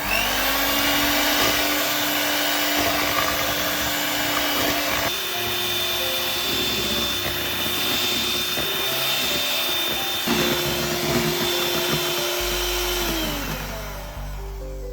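Electric mixer motor running at high speed, whining up to speed at the start, shifting pitch about five seconds in and again about ten seconds in, then winding down near the end.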